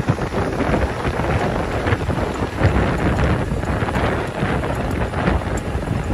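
A 240 hp Case IH tractor's diesel engine working under load, pulling a twelve-spade VE3012 spading machine through wet soil: a steady low rumble with uneven thuds from the spades. Wind buffets the microphone.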